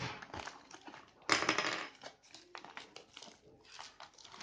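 Foil-lined plastic mailer bag crinkling and rustling in the hands as it is pulled open and emptied, in irregular bursts, the loudest about a second in.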